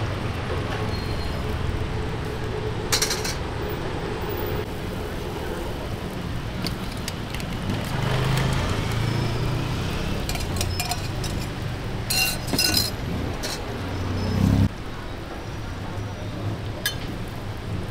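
Metal utensils and a steel cup clinking against a steel roti griddle and pans, a few short sharp clinks scattered through, over a steady low rumble of street traffic.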